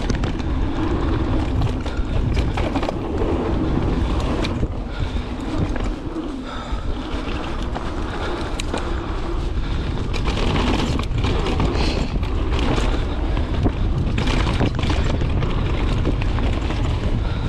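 Wind buffeting the action camera's microphone over the rumble of knobby tyres on a dirt trail, with the frequent rattles and knocks of a Santa Cruz mountain bike descending at speed.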